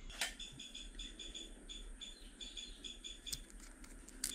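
Faint, rapid, evenly repeated high-pitched chirping of an insect, with a few light clicks.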